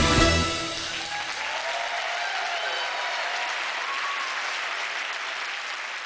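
The last beats of the dance music stop about half a second in, and the audience breaks into applause, with a few cheering voices.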